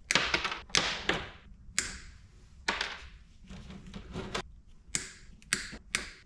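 Wire cutters snipping the crimped ends off copper wires: about a dozen sharp snips at irregular intervals.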